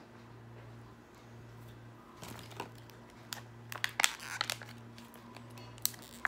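Crinkling and clicking of clear plastic packaging being handled, in quick irregular bursts starting about two seconds in and loudest around the middle, over a steady low hum.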